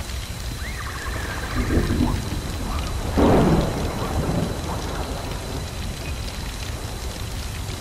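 Layered fantasy storm-and-fire ambience: a steady crackling hiss over a low rumble, with a thunder crack about three seconds in as the loudest sound. A faint high bird-like call, the phoenix's cry, sounds about a second in.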